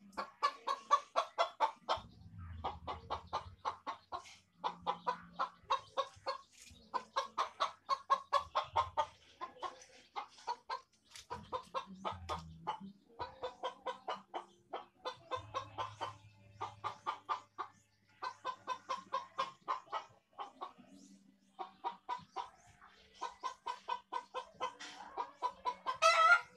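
Bird calls: rapid clucking runs in bouts of a second or two, again and again, with a louder call rising in pitch near the end.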